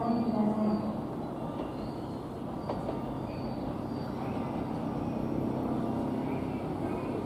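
An electric commuter train rolling slowly over the points into the station with a steady rail rumble and one sharp wheel click a little under three seconds in.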